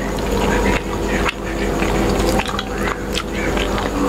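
Close-miked eating sounds: wet chewing of rice and mutton curry eaten by hand, with a steel spoon scooping gravy and clicking against the steel bowl and plates several times, over a steady low hum.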